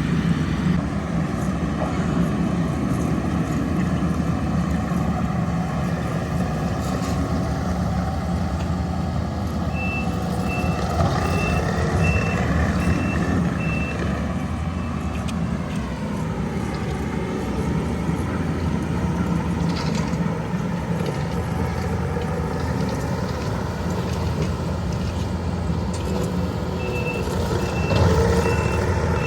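Engine of heavy paving equipment running steadily, its pitch dropping as it eases off about halfway through. A reversing alarm beeps about twice a second for a few seconds before that, and starts again near the end.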